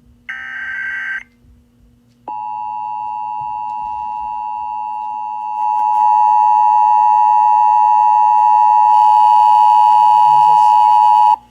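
The last short burst of an Emergency Alert System SAME header, a raspy digital data screech, then after a brief pause the EAS two-tone attention signal (853 and 960 Hz together) sounding steadily for about nine seconds. It gets louder a few seconds in and cuts off abruptly just before the end.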